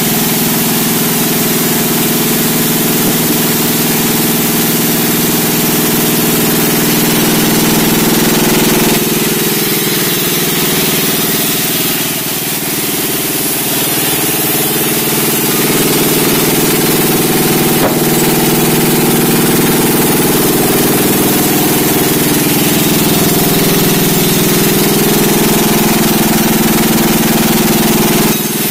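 Engine-driven sawmill running steadily: a loud engine with several steady tones, under a hiss that reaches high up. The sound dips briefly about twelve seconds in.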